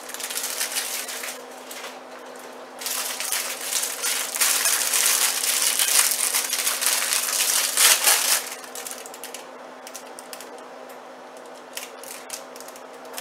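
Thin plastic salad-kit packaging crinkling and rustling in the hands as toppings are shaken out of a packet into a plastic bowl, loudest and most continuous from about three seconds in to past the middle, then dying down to a few scattered crackles and clicks.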